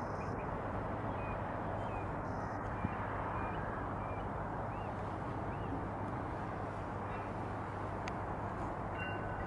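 Steady jet engine noise from a Saudia Boeing 787-9 rolling out along the runway after landing, with faint bird chirps above it.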